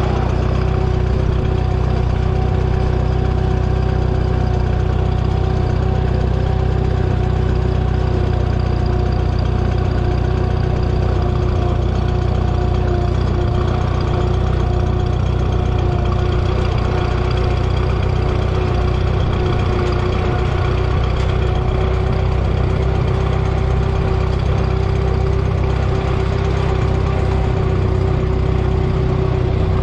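Minneapolis-Moline 302 propane tractor engine idling steadily, heard close up from a microphone on its hood.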